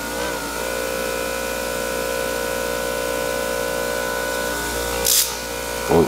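Baseus 5-inch cordless polisher running free in the hand with a steady motor whine; its pitch wavers for a moment at the start, then holds even. A brief hiss about five seconds in and a knock near the end.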